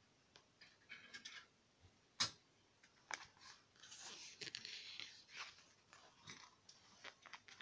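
Glossy photobook pages being handled and turned: soft paper rustling with small taps, a sharp tap about two seconds in and a longer rustle about four seconds in.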